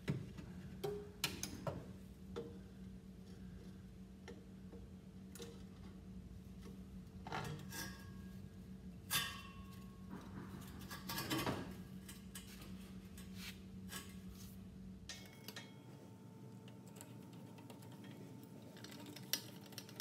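Replacement exhaust pipe with a flex section being maneuvered into place under a car: scattered light metallic clinks, knocks and scrapes as the pipe bumps against the underbody and brackets, over a steady low hum.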